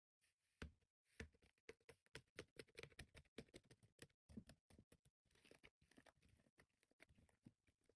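Slime being squeezed and poked close to the microphone: a faint, irregular run of small sticky clicks and pops, starting about half a second in.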